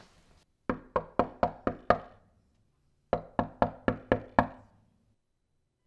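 Knocking on a front door: two quick series of about six knocks each, about a second apart.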